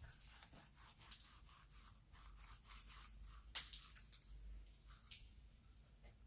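Soft clay slime being squeezed and stretched by hand, giving faint, irregular crackles and little sticky pops, bunched into clusters about two and a half and three and a half seconds in.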